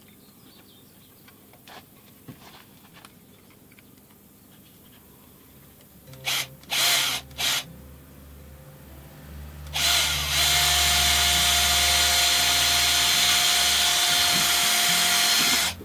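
Power tool: three short trigger bursts, then running steadily at constant speed for about six seconds before stopping.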